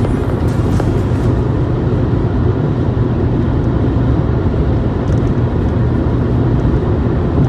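Steady road and engine noise of a car being driven, heard from inside the cabin as an even low hum.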